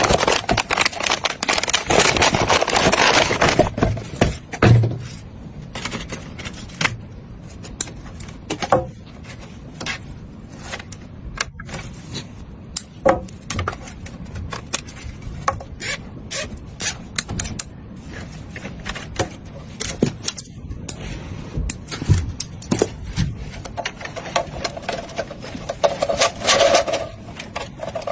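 Irregular clicks, taps and scrapes of hard parts being handled and fitted, as in assembling a desktop PC, busier in the first few seconds and again near the end.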